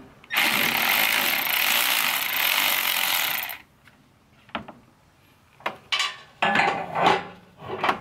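Cordless electric ratchet running for about three seconds as it spins out a bolt holding the condenser fan to the radiator, then stopping; a few light clicks and clatter of parts being handled follow near the end.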